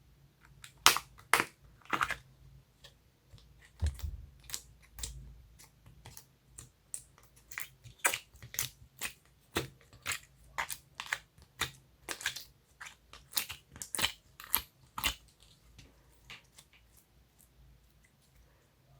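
Homemade slime being squished and pressed by hand, making a run of sharp, crackly clicks and pops, roughly two a second, that die away near the end.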